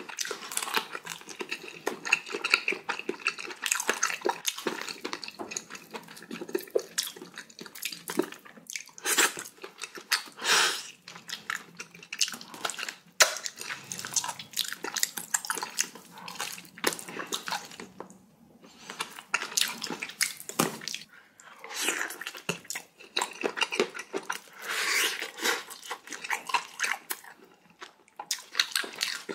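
Close-miked eating: wet chewing, slurping and lip smacking of pork-bone galbitang soup and its meat, a quick irregular run of sharp mouth clicks and wet splashy sounds.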